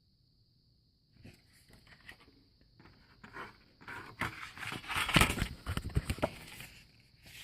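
Irregular knocks, clicks and scrapes of wooden boxes being handled and shifted. They start about a second in and are busiest and loudest in the second half.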